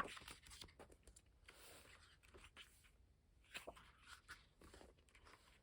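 Faint paper rustling and light clicks as a K-pop album's photobook is handled and its pages turned.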